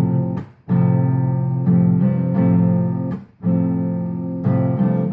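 Acoustic guitar strumming chords, cut off briefly twice, about half a second in and again after three seconds, then resuming.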